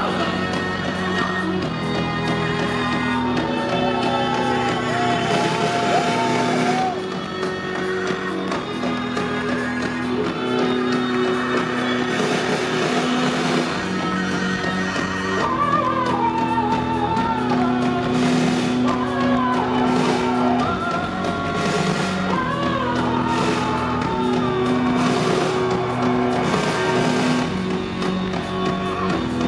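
A live rock band playing through a concert PA, heard from the audience: drums, keyboard, saxophone and violin, with steady held chords that change every few seconds and a wavering melody line over them.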